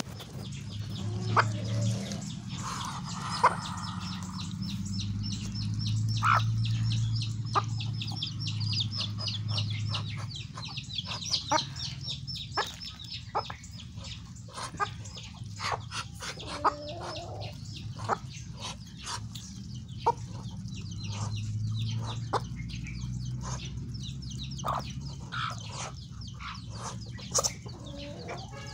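Muscovy ducks and a hen pecking grain off bare dirt, their beaks tapping the ground in many quick clicks, with soft clucking and a low hum underneath.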